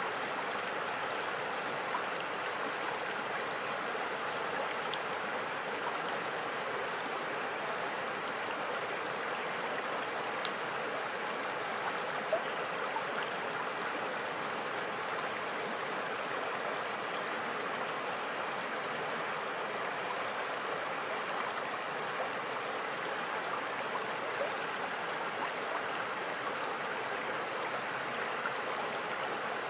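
River water flowing in a steady rush over a rippled, shallow bed, with a few small splashes and gurgles.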